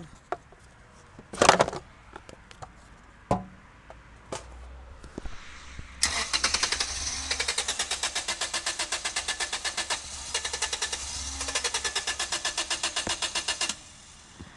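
A few knocks and clunks. Then a car engine is cranked over by its starter motor in a fast, even rhythm for about seven seconds, with a short break partway, and it never catches. The engine has its fuel injectors unplugged and is meant to run on hydrogen fed into the intake, and it is not firing on it.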